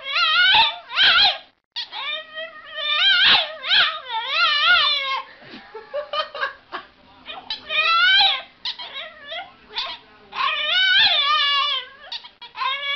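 A dog whining and yowling in a long string of high-pitched cries whose pitch wavers up and down, with short breaks between them.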